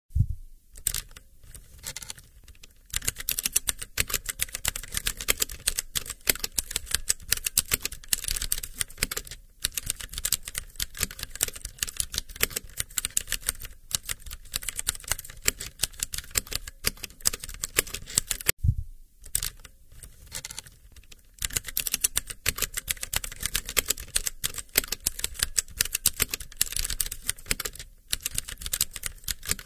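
Rapid computer keyboard typing: a dense, fast run of key clicks, broken by a few short pauses.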